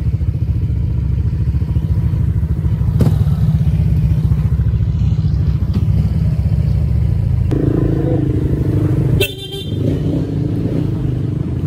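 Motorcycle engines running steadily at low speed, a continuous low hum. There is a brief sharp high-pitched noise about nine seconds in.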